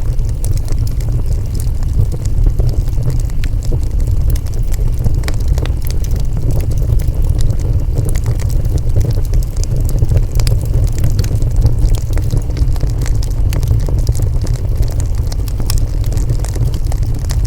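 Wood fire burning: frequent small crackles and pops over a steady low rumble.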